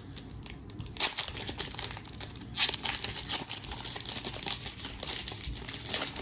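A trading card pack wrapper being torn open and crinkled by hand, a dense crackling that starts sharply about a second in and surges again a moment later.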